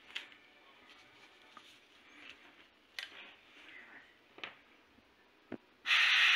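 A few light clicks and taps of the airbrush being handled, then about six seconds in the airbrush opens with a loud, steady hiss of compressed air as it starts spraying thinned primer onto plastic test parts.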